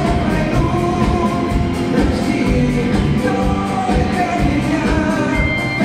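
Live pop-rock song: a male singer with a handheld microphone sings over loud backing music with a steady beat, as heard from the audience in a concert hall.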